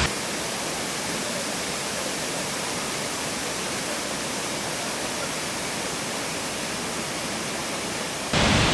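Waterfall rushing as a steady, even hiss of falling water. It gets abruptly louder and deeper just before the end.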